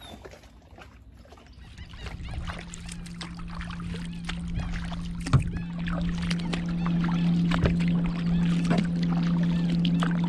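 Kayak paddling: the paddle blades dip and splash, water drips off them, and there is a sharp knock about five seconds in. From about two seconds in, a steady low hum runs under the strokes.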